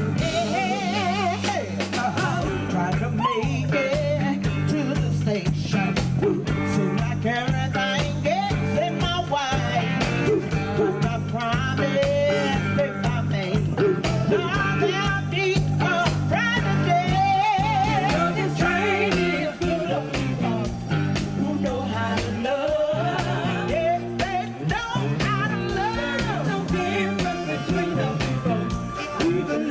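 Live band: several women singing lead and harmony vocals over a steady drum beat, with a bass line and harmonica.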